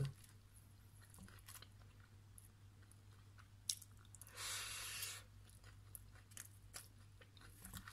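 Faint chewing of a mouthful of loaded fries topped with shredded lettuce, with small mouth clicks and one louder crunch lasting about a second just past the middle.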